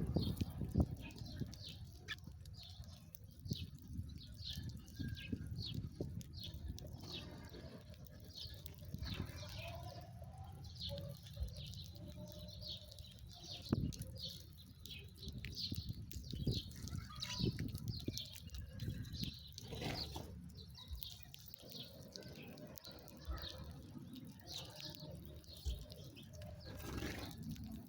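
Small birds chirping: many short, high chirps in quick runs, over a low background rumble.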